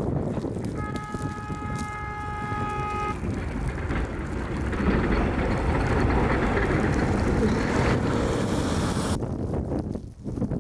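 Strong blizzard wind buffeting the microphone, with a vehicle horn held as one steady blast for about two seconds, starting about a second in. The wind noise grows louder and hissier toward the end before breaking off abruptly.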